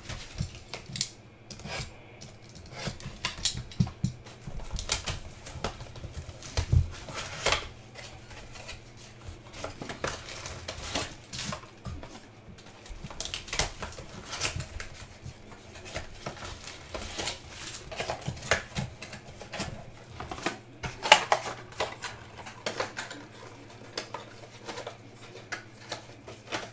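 Plastic shrink-wrap crinkling and cardboard rustling as a sealed hobby box of baseball cards is torn open by hand and its foil-wrapped packs are pulled out and set down. The sound is an irregular run of crackles and taps, with one sharper snap about three-quarters of the way through.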